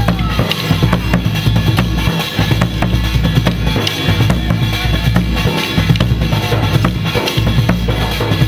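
Procession band drums beating a steady, dense rhythm, with a deep bass drum under sharper snare-like strokes.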